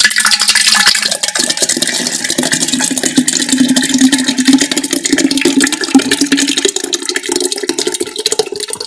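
Thick cream (malai) poured in a stream from an aluminium pot into an earthenware pot, splashing and gurgling. Its hollow tone rises in pitch over the last few seconds.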